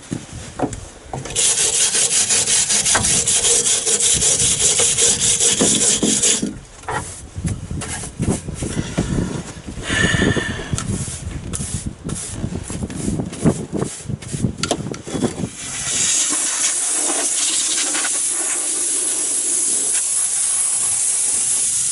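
A metal tractor-cab floor being rubbed down by hand with an abrasive pad: fast scrubbing strokes, then slower, irregular rubbing and scraping. About 16 seconds in, an aerosol can of primer starts spraying with a steady hiss.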